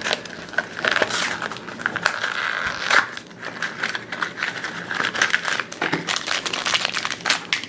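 Blind-bag toy packaging being opened by hand: a small cardboard box pulled apart, then a yellow plastic bag crinkled and torn open. It makes a dense, continuous run of crackles and rustles.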